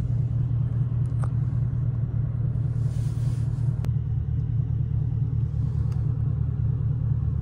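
Camaro SS 6.2-litre V8 droning steadily at a light, even cruise, heard from inside the cabin with road noise; no revving.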